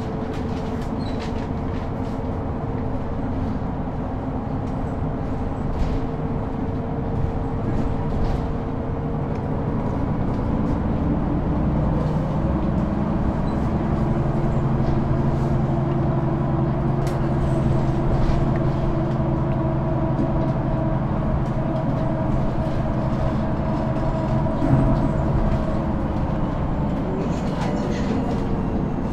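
Mercedes-Benz O530 G II Citaro articulated bus with a Voith automatic gearbox, heard from inside the cabin near the articulation joint: the drivetrain runs with a steady mix of engine and gearbox tones over road rumble. About eleven seconds in the tones shift and the sound grows louder, holding steady after that.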